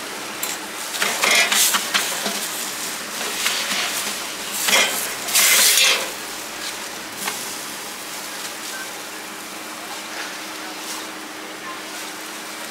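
Food frying on a hot pan while metal utensils stir and scrape it. A cluster of loud scrapes and clatters comes in the first six seconds, then a quieter steady sizzle.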